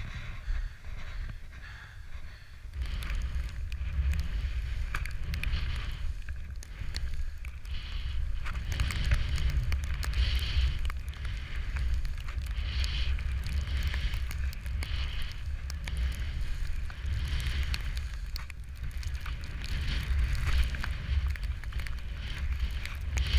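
Wind noise buffeting a handheld action camera's microphone while skis hiss through deep powder snow, swelling with each turn every couple of seconds. It gets louder about three seconds in.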